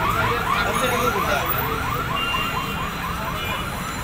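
Electronic alarm chirping in a fast repeating warble, each chirp sweeping upward, about five a second, over a low street rumble.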